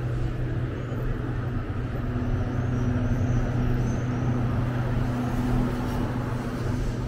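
A motor vehicle's engine running at a steady low hum, holding one pitch without revving.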